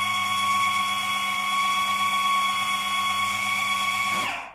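Electric food processor motor running at a steady high-pitched whine as it whips sponge-cake batter, then switched off about four seconds in, its pitch falling as it spins down.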